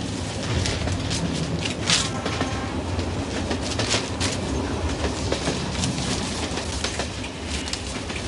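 Passenger train running, heard from inside the carriage: a steady low rumble with irregular clicks and knocks from the wheels and coaches.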